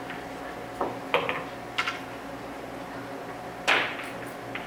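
Pool balls clacking: about half a dozen sharp clicks and knocks of cue tip and balls, the loudest a ringing knock near the end, over a steady room hum.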